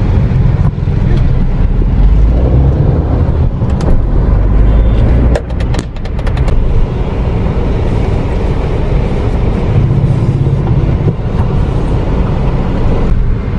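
Car engine and traffic rumble heard from inside a car crawling through a traffic jam, with a short run of clicks about five and a half seconds in.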